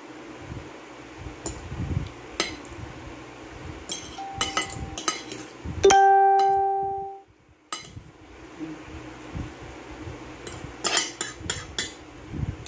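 Fork and knife clicking and scraping against a plate as a banana is cut. About six seconds in comes the loudest sound, a single clear ringing note that dies away over a second or so.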